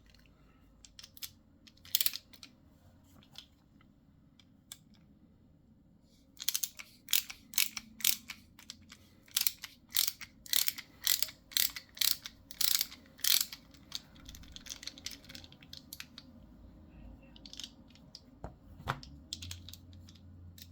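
Sharp small metal clicks from a screwdriver and bits working on a folding knife's screws: a few scattered at first, then a steady run of about two clicks a second for around seven seconds in the middle, then scattered again.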